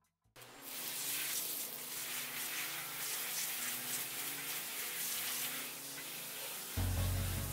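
Garden hose spray nozzle spraying water onto a dog's soapy tail and the wooden deck, a steady hiss that starts just after the beginning: the antifungal shampoo being rinsed out of her fur. Background music comes back in near the end.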